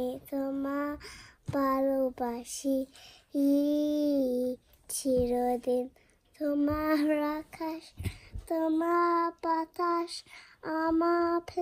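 A young child singing a song in short held phrases with brief pauses between them; the pitch steps higher about halfway through.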